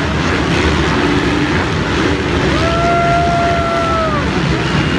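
A pack of motocross bikes racing, their engines running loud and hard at full throttle as they climb and jump a dirt hill. A steady held tone sounds for nearly two seconds in the middle.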